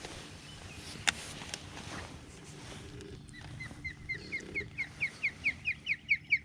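A bird calling a rapid series of short, down-slurred whistled notes, about four to five a second, starting about three seconds in and growing louder. A single sharp click comes about a second in.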